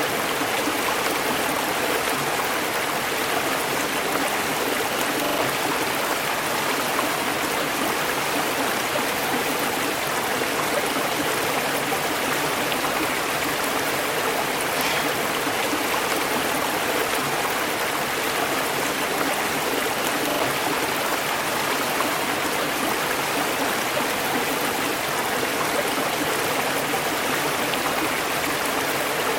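River water flowing over rocks: a steady, even rushing and babbling of a stream.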